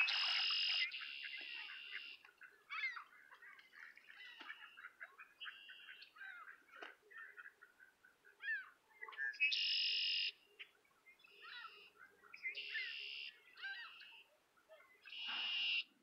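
Red-winged blackbirds singing: four loud buzzy trills, each a little under a second long and a few seconds apart, each led by short whistled notes. Many quieter chirps and whistles from other birds come in between.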